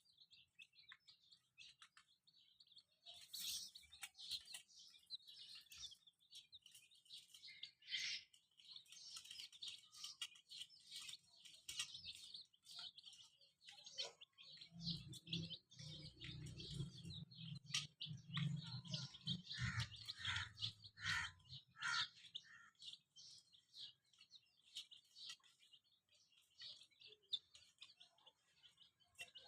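Baby chicks chirping: many short, high peeps in quick succession, thickest through the middle, with a low hum underneath for several seconds midway.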